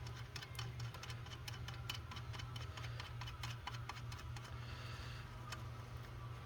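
Light, irregular clicks and ticks of small metal parts being handled and fitted, several a second, over a steady low hum.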